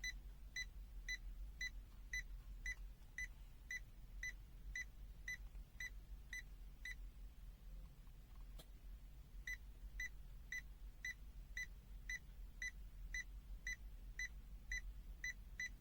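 The CZDANG 12S multimeter's buzzer beeps in its non-contact voltage (NCV) mode, sensing a live wire without touching it. It gives short, faint, high-pitched beeps at a steady pace of about two a second.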